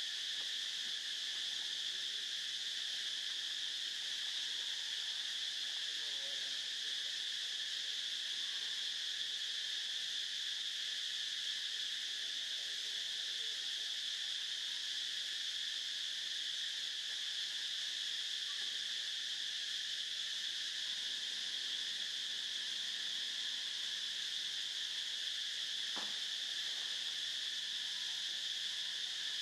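Steady, unbroken high-pitched drone of an insect chorus, with one faint tick near the end.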